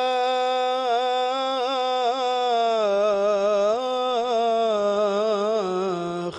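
Solo male voice chanting an Islamic devotional supplication unaccompanied. He holds one long, ornamented melisma that wavers up and down and slowly sinks in pitch.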